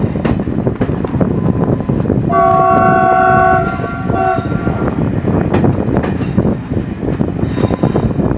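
Train rolling along the track, with rail-joint clicks over a steady rumble, heard from the rear carriage. About two seconds in the locomotive's multi-tone horn sounds one long blast of over a second, followed by a short second toot.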